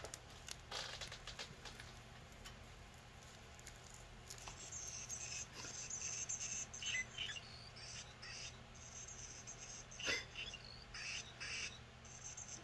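Short, high, faint electronic chirps from a battery-powered hummingbird cat toy, repeating through the second half, with a few light clicks and taps from the toy being handled.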